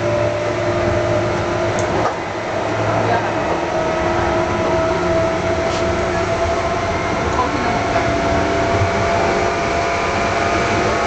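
Meitetsu 6800 series electric train running, heard from inside the car: a motor and gear whine in several tones that rises slowly over the rumble of wheels on rail, a running noise that seems abnormal. There are a couple of sharp clicks.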